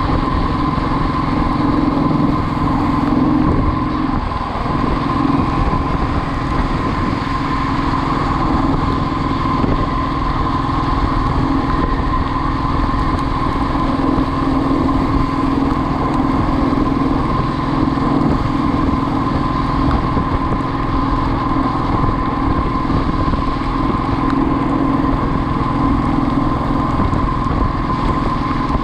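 Motorcycle engine running steadily while riding, with a brief easing about four and a half seconds in.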